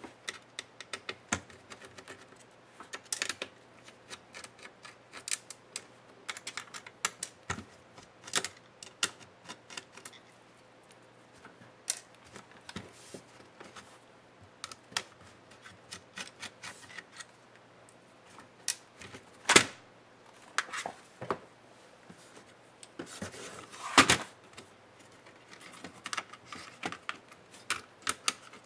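Irregular clicks and taps of an HP Stream 13 laptop's plastic case and parts being handled and worked with a small screwdriver during disassembly, with two louder knocks about two-thirds of the way through.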